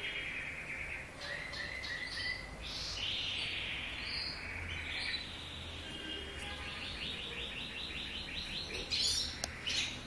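Caged young canaries chirping and twittering continuously, with a fast run of evenly repeated notes, about five a second, in the last few seconds and a brief louder burst near the end.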